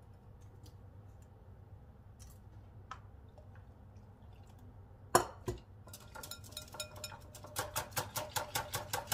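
Wire whisk beating eggs in a glass bowl, its wires clinking against the glass. The first few seconds hold only sparse faint taps, then comes a sharp knock about five seconds in, then steady rapid clinking at about four strokes a second.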